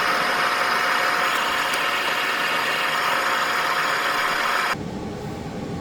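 A steady mechanical whirring hiss with a faint held tone, which cuts off suddenly near the end.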